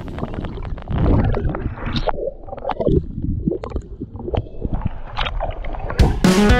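Muffled underwater gurgling and bubbling with irregular knocks, heard through an action camera held underwater. About six seconds in, a splashy rush as the camera breaks the surface.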